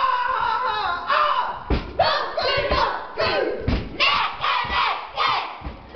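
A children's kapa haka group chanting a haka in unison, loud shouted calls from many voices at once, with several heavy thumps of stamping bare feet on the stage.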